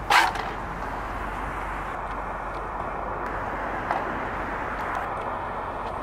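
Steady urban traffic din with no clear tones. A short, sharp noise cuts in right at the start and is the loudest sound, and a fainter click comes about four seconds in.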